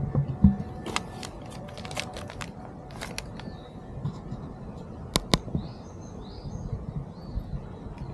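Small birds chirping outdoors, with a quick run of sharp clicks about a second in and two loud clicks just past the middle.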